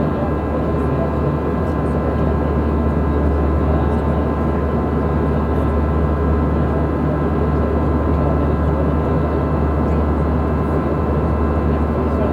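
Airbus A320 cabin noise in flight: a steady drone of engines and rushing air with a strong low hum and a few steady whining tones above it.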